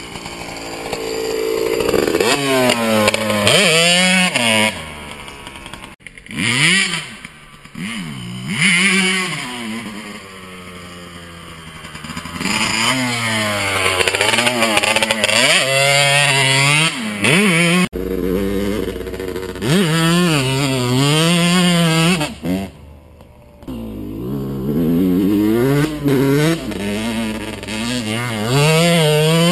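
2007 Yamaha YZ125's two-stroke single-cylinder engine revving hard as the dirt bike rides past, its pitch rising and falling again and again with the throttle and gear changes.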